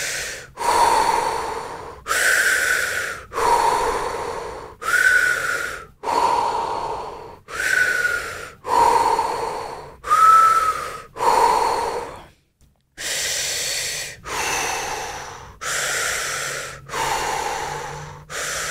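A woman breathing quickly and forcefully, alternating full audible inhales and exhales about every second and a bit with no pause between them: superventilation breathwork. The train of breaths stops briefly about twelve seconds in, then carries on.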